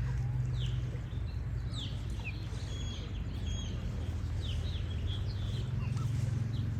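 Small songbirds chirping: many short, quick calls that slide down in pitch, scattered irregularly, over a steady low hum.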